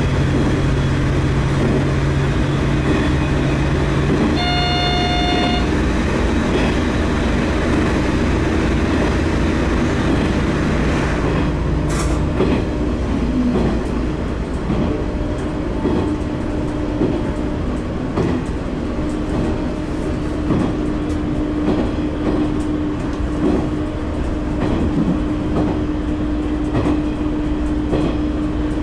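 9640-series diesel railcar running steadily, with engine drone and wheel-on-rail noise. A short horn blast of about a second comes about five seconds in, and a sharp knock about twelve seconds in. Rail-joint clicks run through the second half.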